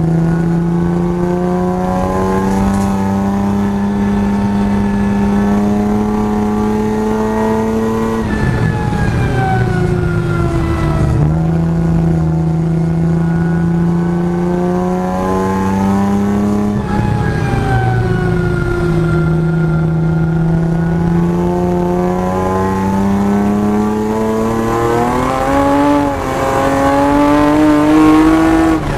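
Eaton M62-supercharged BMW 325i E36 Compact's M50B25 straight-six heard from inside the cabin, pulling in gear with the revs slowly climbing. The driver lifts off twice, about 8 and 17 seconds in, and the revs fall before climbing again. Near the end they rise faster, then drop away.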